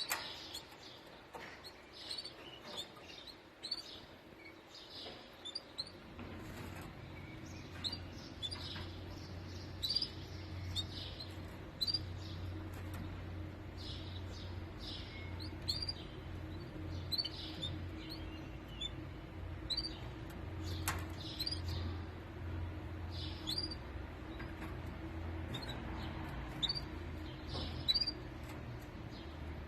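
Canaries giving short, scattered chirps and call notes. A steady low hum comes in about six seconds in and runs under the chirps.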